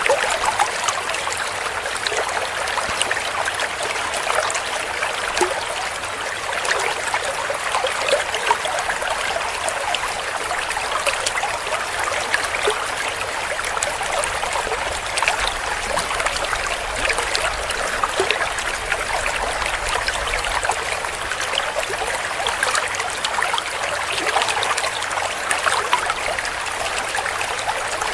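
Shallow stream of water trickling and gurgling over rocks, a steady splashing with many small bright droplet sounds.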